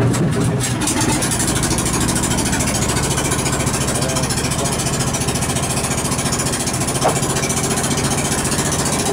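A boat's inboard engine below deck starts abruptly and then runs steadily, with an even, fast pulse.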